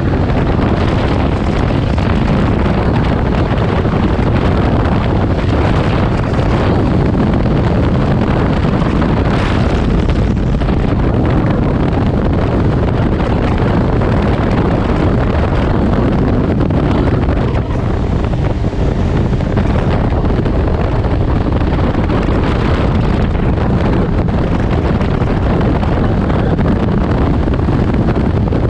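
Steady rush of wind on the microphone over a Can-Am Ryker Rally three-wheeled motorcycle cruising at speed, its engine running under the wind noise.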